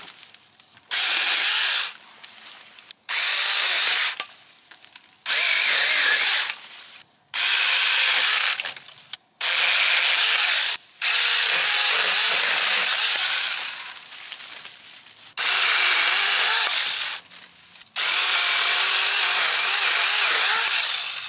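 Alloyman 6-inch 20-volt cordless mini chainsaw cutting small honeysuckle branches. The electric motor and chain run in about eight short bursts of one to three seconds each as the trigger is pulled and released.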